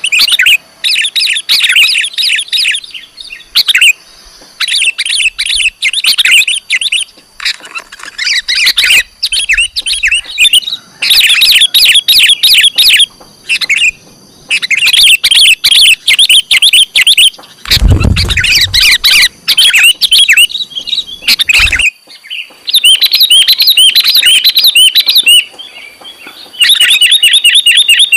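Sooty-headed bulbul (kutilang) calling loudly in quick runs of sharp, high chirps, bursts of a second or two separated by short pauses: the kutilang lure call. A brief low thump about eighteen seconds in.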